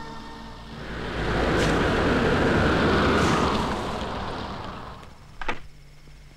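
Hindustan Ambassador car driving past on a wet road, its engine and tyre noise swelling and fading away over about four seconds. A short sharp sound follows about five and a half seconds in.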